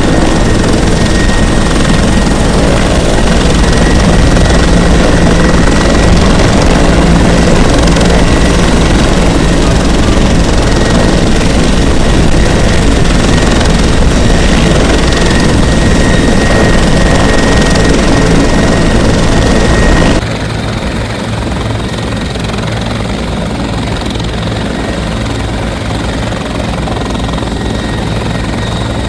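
Bell 412EP twin-turbine helicopter running, loud and steady, with a steady high turbine whine over the low rotor noise. About two-thirds of the way through, the sound drops abruptly quieter and the whine is gone.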